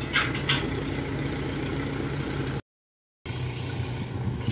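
Kubota DC-105X combine harvester's diesel engine running steadily as the machine moves along a dirt track, with two short scratchy sounds just after the start. The sound drops out completely for about half a second a little past halfway.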